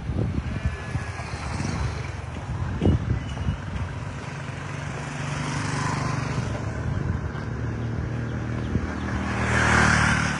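Road traffic: a motor vehicle engine running steadily from about four seconds in, with a swell of road noise that peaks near the end.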